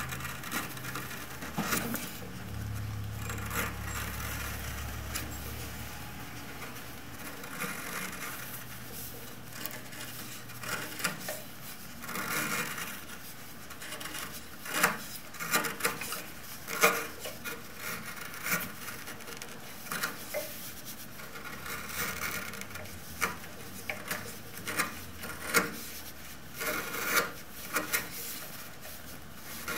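A sharp bench chisel paring thin shavings off a small block of wood by hand: a series of short, crisp slicing scrapes at an uneven pace.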